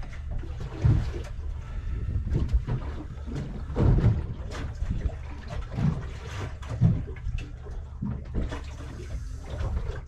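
Sea water lapping and slapping against the hull of a small fishing boat, with irregular knocks and splashes over a steady low rumble.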